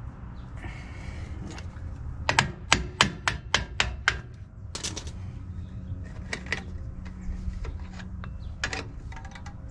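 Sharp metal clicks of a hold-down spring tool working the spring cups and pins on a drum brake's shoes. A quick run of about seven clicks comes a couple of seconds in, then scattered single clicks, over a steady low rumble.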